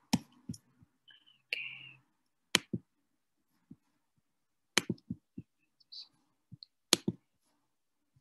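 Scattered sharp clicks from computer keys, coming in twos and threes with pauses between.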